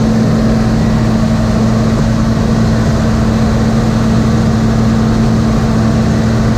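Engine running steadily at an even speed: a loud, unchanging drone with a strong hum.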